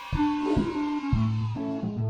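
Instrumental music with a steady beat, pitched melody notes changing about every half second over low bass notes.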